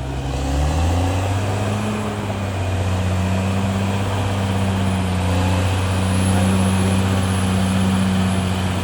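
CAT D6R XL bulldozer's diesel engine running hard; the revs climb in the first second, then hold steady and loud.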